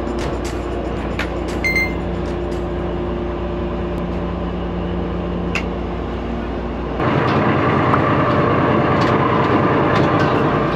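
Heavy machinery's diesel engine running steadily. About seven seconds in it grows louder and rougher, with a whine on top, as the machine works under load.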